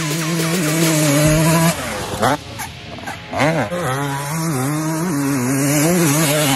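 Dirt bike engine revving hard, its pitch holding high and wavering, then dropping sharply and climbing back twice midway.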